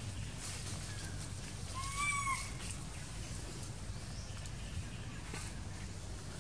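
A long-tailed macaque gives a single short, high coo that rises and falls about two seconds in, with a fainter brief call just before it, over a steady low background rumble.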